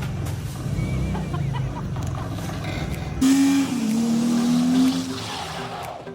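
2001 Toyota Tacoma pickup's engine running and revving. About three seconds in, the low rumble cuts off abruptly and a louder hissing sound with a steady held tone takes over, fading out near the end.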